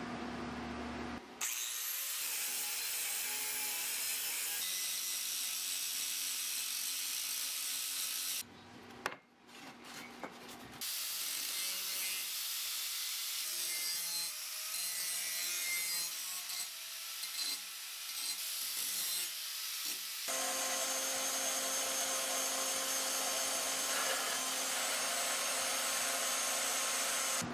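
Angle grinder grinding a weld seam down on a steel plate: a steady, harsh grinding in long runs, with a short break and a few clicks near the middle.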